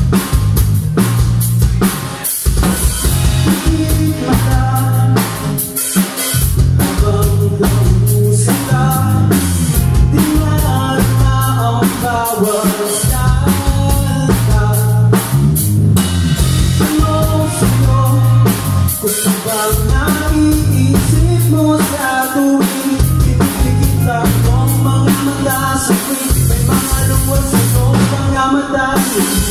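Rock band playing live: a drum kit keeping a steady beat under an electric bass line and electric guitars played through amplifiers.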